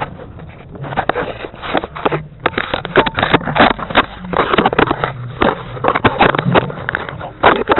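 Close handling noise on the camera's microphone: irregular rubbing, scraping and sharp knocks as the camera is moved about against clothing and the van's interior, over a steady low hum.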